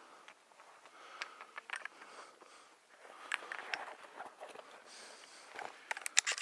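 Rustling and handling noise as a hunter shifts and swings his shotgun, with a quick run of sharp knocks and clicks near the end.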